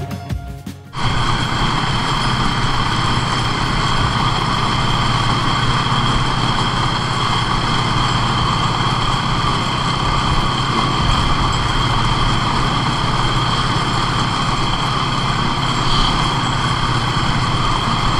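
Ski-Doo 600 four-stroke snowmobile running steadily at trail speed, engine and track with a steady high whine on top. Background music cuts off about a second in.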